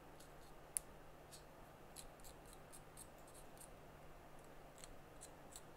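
Faint, irregular scratchy ticks of a small knife blade scraping dirt from around the baseband CPU area of an iPhone 7 Plus logic board, with one sharper click just under a second in.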